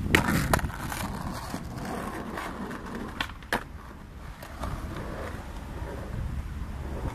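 Skateboard rolling over rough concrete, a steady low rumble, with a few sharp clacks: two near the start and two more about three seconds in.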